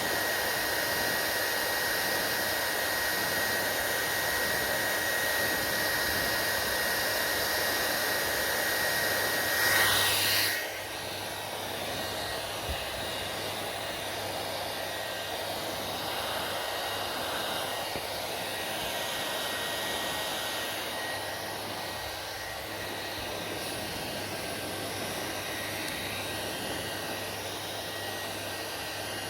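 Hair dryer blowing steadily with a high whine; about ten seconds in it swells briefly, then drops to a quieter, lower sound with a low hum, as on a lower setting.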